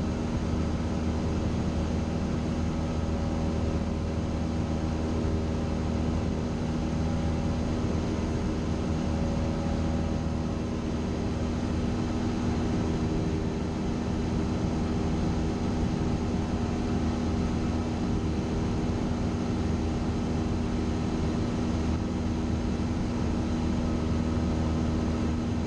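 Single-engine Cessna's piston engine and propeller running steadily at cruise, heard as a constant even drone from inside the cabin.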